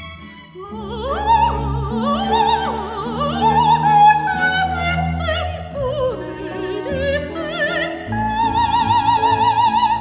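Operatic soprano singing with a symphony orchestra: quick runs climbing and falling over sustained strings, then a long high note held with vibrato near the end.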